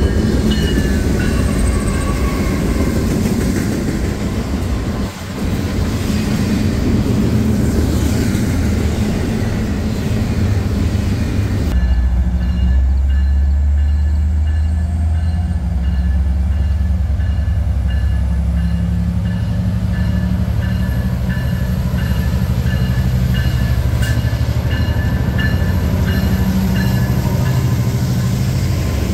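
BNSF diesel freight train passing close by: locomotive engines running and wheels rumbling on the rails. About twelve seconds in, the sound changes abruptly to a steadier deep rumble.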